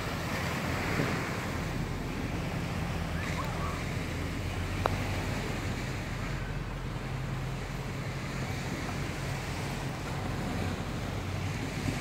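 Small waves washing onto a sandy shore, with wind buffeting the microphone and a low steady hum underneath. One short sharp click about five seconds in.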